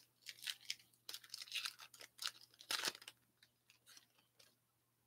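Trading cards and a foil pack wrapper being handled: a run of faint rustles, crinkles and card-on-card slides, loudest about three seconds in, then thinning to a few light ticks.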